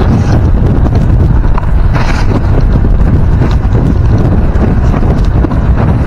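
Wind buffeting the microphone of a camera on a moving motorcycle, heard as a loud, steady low rumble with a brief louder rush about two seconds in.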